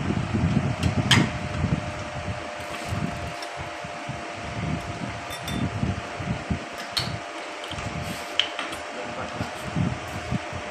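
Steady electric fan running with a constant whine and a low rumble. A few light clicks come from hands working at the spark plug caps on the motorcycle's cylinder head, the sharpest about a second in.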